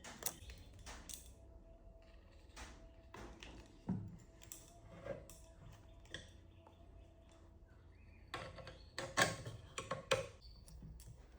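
Table fan parts and tools being handled during repair: scattered clicks, clinks and knocks, with a quick run of louder ones near the end.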